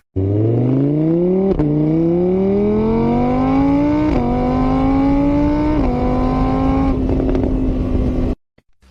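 A vehicle engine accelerating up through the gears: its pitch climbs, drops back at three gear changes with each climb slower than the last, then holds nearly steady before cutting off suddenly.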